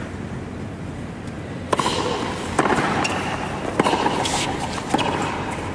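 Tennis ball bounced on a hard court four times, about a second apart, as the server readies to serve, over a steady crowd murmur.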